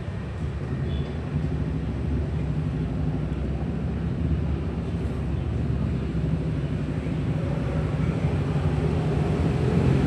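Street traffic: motorcycle and car engines running and passing by, a steady low rumble that grows somewhat louder near the end.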